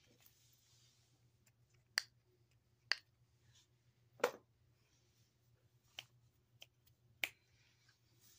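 About six sharp clicks and taps of small plastic fidget toys being handled, one every second or so, with faint rustling between them.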